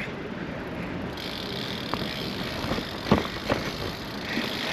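Steady tyre and wind noise from a Brompton folding bicycle being ridden, with a few light knocks from the bike; the noise grows about a second in as it gets under way.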